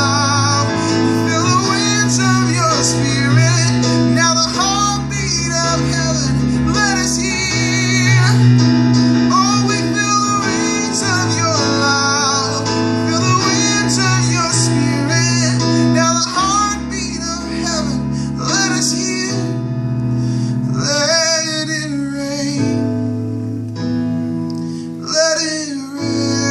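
A man singing with vibrato while accompanying himself on an Alesis electronic keyboard playing sustained chords.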